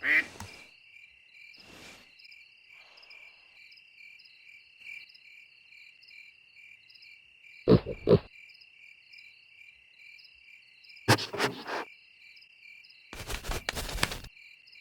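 Steady pulsing chirps of crickets in a night chorus, broken three times by loud, short bursts of a cartoon duck quacking, the last cluster longer and noisier than the others.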